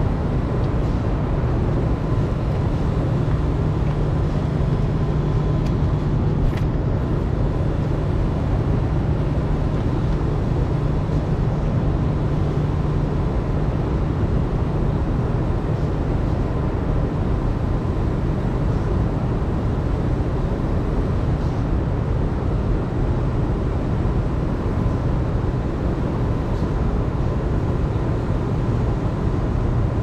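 Engine running steadily with a low, even drone; a deeper hum in it drops out about 13 seconds in.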